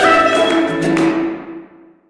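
Orchestral music with held notes and a percussion hit about a second in, then dying away to nothing near the end.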